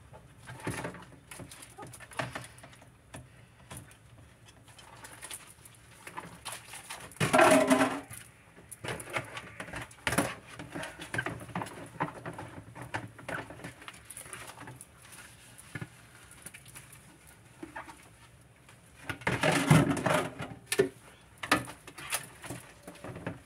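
Dishes being washed by hand in a kitchen sink: plates and utensils clinking and knocking, with splashing water. There are two louder stretches with a hum-like tone, about a third of the way in and again near the end.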